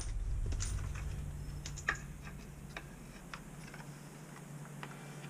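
Scattered light clicks and ticks of small hardware being handled: toilet flange bolts and washers picked up and set into the slots of a plastic toilet flange, over a low steady hum.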